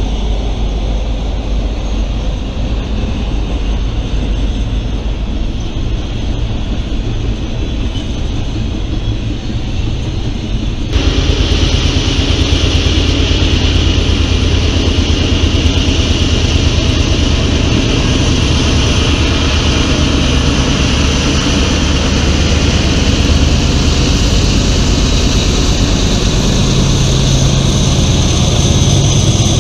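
A steady rumble, then an abrupt jump about eleven seconds in to a louder Norfolk Southern diesel freight train passing: the locomotive's engine running and the wheels of tank cars and hoppers rolling over the rails.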